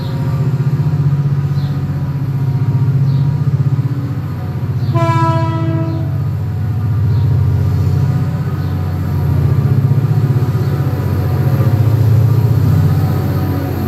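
Diesel freight locomotive approaching with its engine running steadily, giving one horn blast of about a second about five seconds in.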